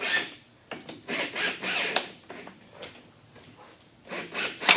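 Chevy Volt battery modules with plastic cell racks being slid apart on a bench after their long through-bolts are out. The rasp comes in a few short bursts, each with a thin high squeal; the loudest comes near the end, as the stack separates.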